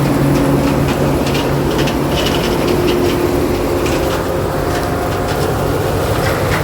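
Farm machinery engine running steadily at harvest, with a dense rattle of clicks and crackles over the hum.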